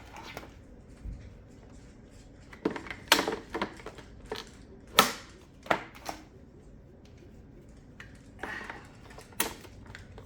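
Plastic high chair parts being handled and fitted together: irregular sharp clicks and clacks, some in quick clusters, with quieter rustling between.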